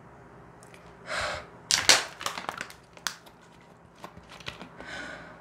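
Plastic water bottle being handled: crinkling and sharp clicks of the thin plastic, loudest about two seconds in, with a few more clicks near the end.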